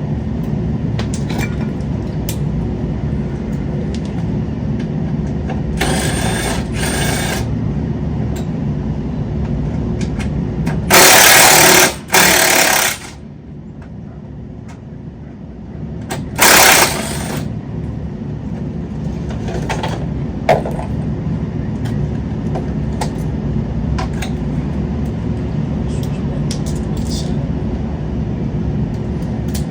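Power wrench running in short bursts as bolts come off the front end, two of them very loud around the middle, over a steady low hum.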